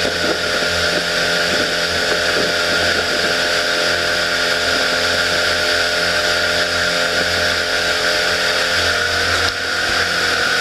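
Pontoon boat's motor running steadily under way, with a steady rushing hiss of wind and water over it.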